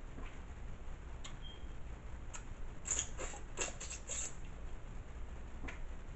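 Eating boiled blue crab by hand: short sharp cracks and clicks of shell being broken and picked, along with mouth sounds, bunched together about three to four seconds in.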